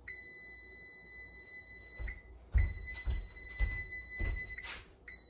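Electronic beeper sounding three long, high-pitched beeps of about two seconds each, with a few light knocks during the second beep.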